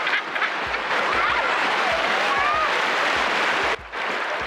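Women's shrieks and calls over a steady rush of surf and splashing water, with a brief drop in level near the end.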